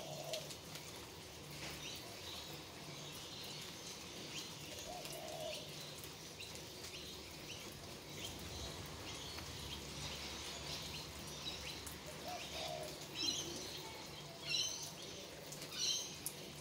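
Light rain falling with faint drips, and birds calling over it: a dove cooing three times and small birds chirping, the chirps louder in the last few seconds.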